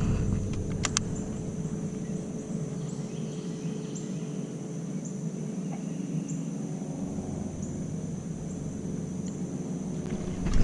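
Outdoor pond ambience: a steady high-pitched insect drone over a low rumble, with a couple of sharp clicks a little under a second in.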